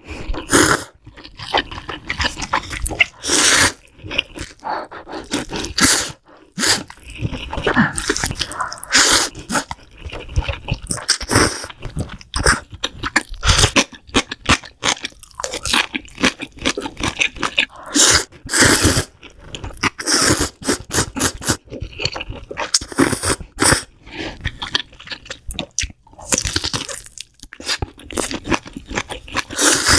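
Close-miked ASMR eating: spicy ramen noodles slurped and chewed, with wet chewing and crunchy bites coming irregularly throughout.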